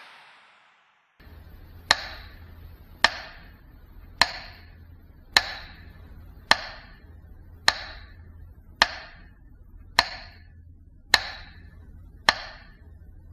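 Sharp ticks or knocks repeated at an even pace, a little slower than one a second, ten times, over a low steady hum.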